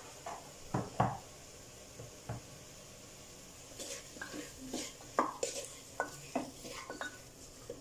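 Wooden spatula stirring chicken and vegetables in a pressure cooker pot, with short scrapes and knocks of wood against the pot's metal sides. There are a few strokes at first, a lull, then a quicker run of them over the second half.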